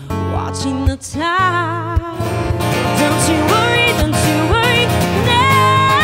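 A woman singing over acoustic guitar accompaniment, holding long notes with a wavering vibrato.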